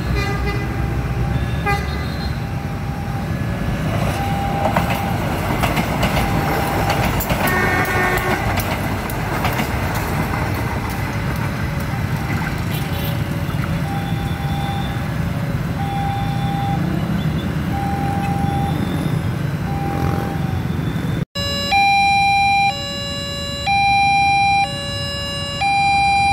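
Railroad level-crossing alarm sounding an electronic two-tone signal, alternating high and low tones, over steady motorcycle and car traffic with a brief horn about 8 seconds in. After a cut about 21 seconds in, the alarm is loud and close, each tone lasting about a second.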